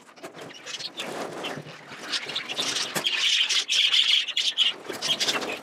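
A roomful of caged budgerigars chattering and squawking, many overlapping calls, getting louder about halfway through.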